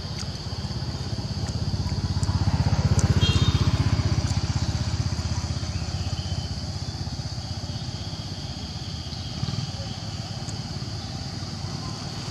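A motorbike engine passing by on the road, growing louder to its peak about three seconds in and then fading away over the next few seconds.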